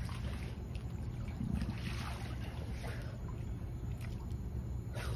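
Pool water splashing and lapping from a swimmer's breaststroke strokes and kicks, a few short splashes at a time, over a steady low hum.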